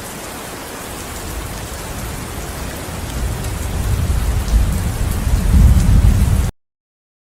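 Steady rain hissing, with a low rumble of thunder building from about two seconds in and growing loudest near the end. The sound cuts off abruptly about six and a half seconds in.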